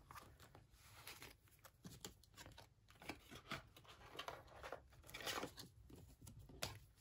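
Faint crinkling and clicking of plastic binder pocket pages and card sleeves as photocards are slid in and out of them by hand, with a few louder rustles about five seconds in.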